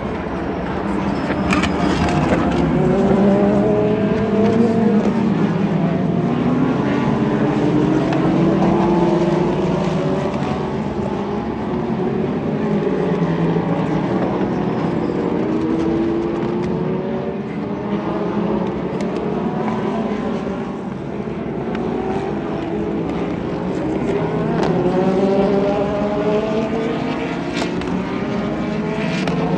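IMSA sports racing cars running past one after another, engines rising in pitch through upshifts and falling back, several often heard at once. The sound goes on without a break.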